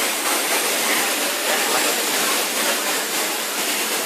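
An electric welding arc running, a steady even hiss.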